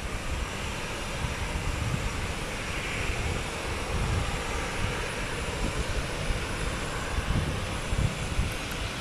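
Airbus A320 jet engines running as the airliner moves along the runway: a steady rushing roar with irregular low rumbling underneath.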